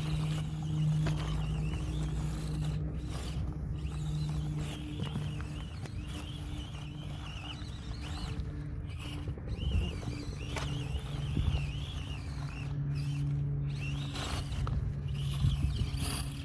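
Axial SCX24 Deadbolt 1/24-scale crawler's small electric motor and gearbox whining as it crawls, the pitch wavering up and down with the throttle.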